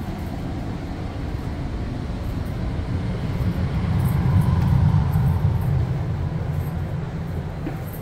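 Steady low rumble of a standing Bombardier BiLevel commuter coach, its ventilation and running equipment humming, swelling about halfway through as the vent grille overhead is passed and then easing off.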